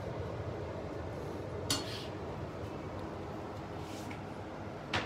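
A spatula clinking against a frying pan twice, once about two seconds in and again near the end, over a steady low background hum.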